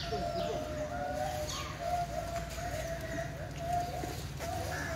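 Birds calling in the background: a repeated note broken into short segments, with a few brief high chirps.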